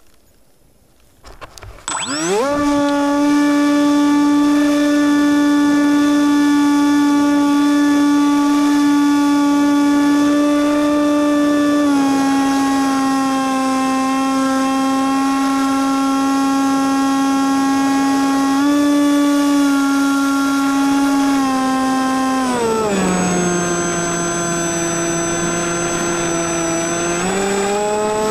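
RC airplane's motor and propeller spinning up from silence about two seconds in, then running as a steady pitched drone. The pitch dips slightly around the middle, drops clearly about three-quarters through as the throttle is eased back, and rises again near the end.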